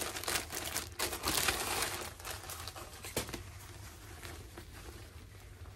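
Plastic packaging bag crinkling as a skirt is pulled out of it. The crinkling is busiest in the first two and a half seconds, with one sharper crackle about three seconds in, then fades to quieter rustling.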